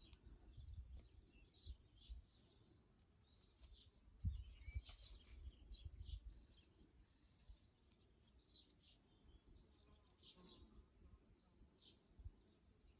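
Near silence with faint, scattered bird chirps. A few soft low bumps, the loudest about four seconds in, then a cluster up to about six seconds in.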